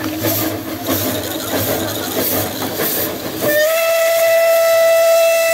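Narrow-gauge steam locomotive chuffing past with hissing steam, then its steam whistle blows one long steady blast from about three and a half seconds in, rising slightly as it starts.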